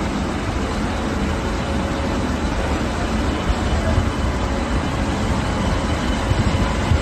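Indian Railways electric locomotive rolling slowly past as the train departs. A steady low rumble of wheels on rail with a faint hum, and a few knocks in the second half.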